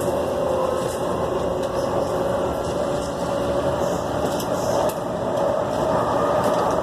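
MAX light-rail train running, heard from inside the passenger car: a steady rumble with a motor whine that rises a little in pitch near the end.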